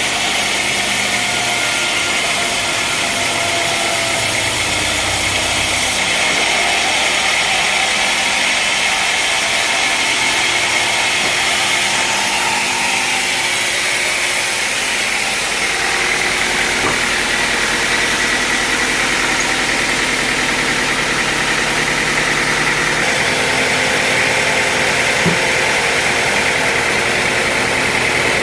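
Engine-driven sawmill machinery running steadily, its engine note and the saw's high whine changing a few times.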